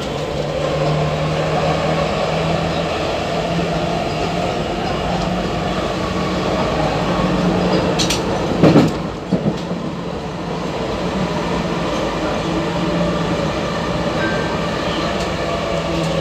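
Athens Metro Line 1 electric train running along the track with a steady hum and rumble. A few loud, sharp clacks come a little past halfway.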